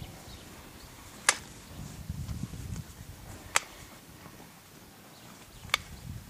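Hoof nippers cutting a cow's hoof: three sharp snaps about two seconds apart, with low rustling and thumping of handling between them.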